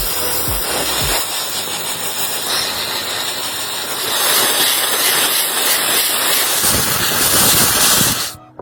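Loud, steady hiss of compressed air spraying, as from a sandblaster or spray gun working on the pump, getting louder about halfway through and cutting off suddenly near the end.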